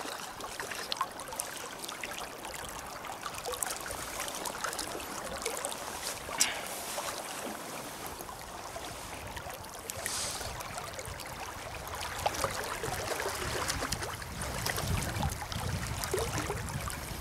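River current running steadily over a shallow chute, with a few brief clicks.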